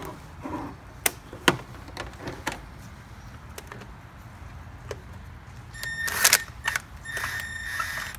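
Metal tools and parts clinking and scraping during hand work under a car's hood: scattered light clicks and knocks, then two spells of metallic jangling with a ringing note, about six seconds in and again near the end.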